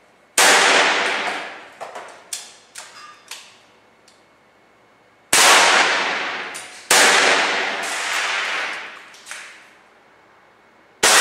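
Four air rifle shots at uneven intervals, the first about half a second in and the last near the end. Each shot is a sharp crack followed by a long ringing clang as the pellet strikes metal junk in the target pile. After the first shot come a few smaller clinks and rattles of debris.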